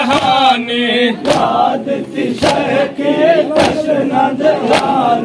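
Men's voices chanting a Shia noha lament in unison, the crowd joining in. Sharp chest-beating slaps (matam) land in time about once a second.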